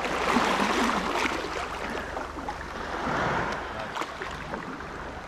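Water washing and splashing around rocks, swelling louder twice, with a few small clicks.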